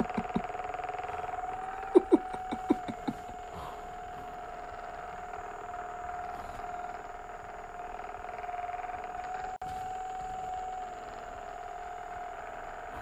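A small electric motor humming steadily at one pitch, with a quick run of sharp knocks about two seconds in.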